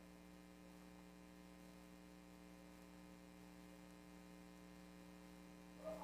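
Near silence with a steady electrical hum.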